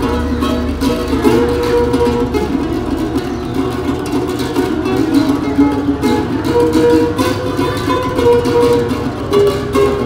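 Solo classical guitar playing a fingerpicked melody, a steady flow of plucked notes.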